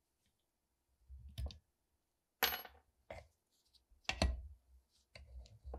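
Rusty steel airgun parts clinking and knocking against each other and a metal bench vise as they are handled. The sharpest clank comes about two and a half seconds in and another just after four seconds, followed by lighter rattling.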